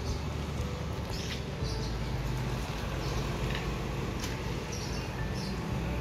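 Steady low hum of a machine or engine, with short high bird chirps breaking in irregularly about six times.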